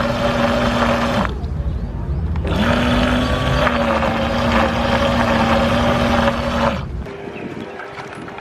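Twin electric propeller motors of a radio-controlled bait fishing boat running under power, with a steady whine over a rushing noise. It eases off about a second in, picks up again a second later, and falls away near the end.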